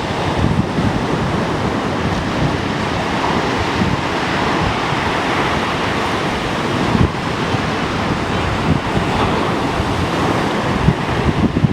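Rough Black Sea surf: waves breaking and rushing in a steady roar, with wind buffeting the microphone in gusts.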